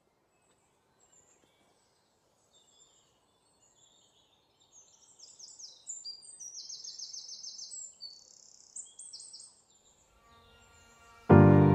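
Birds singing: a string of high chirps with a fast run of repeated notes in the middle. Music starts suddenly near the end and is the loudest sound.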